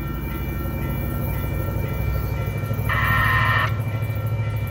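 Grade-crossing warning bells ringing steadily while an approaching light rail train rumbles closer, its horn sounding one short blast about three seconds in.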